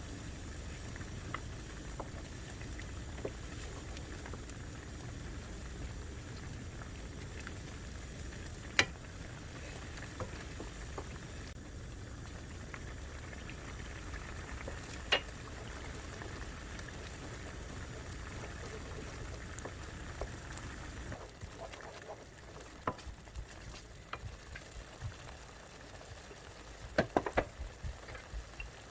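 Food cooking on a stove: a steady low noise with scattered sharp clinks of utensils, and a quick cluster of clinks near the end. The steady noise eases off about three quarters of the way through.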